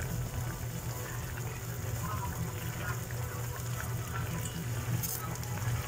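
Soup boiling in a stainless steel pot on the stove: steady bubbling with small scattered pops, over a steady low hum.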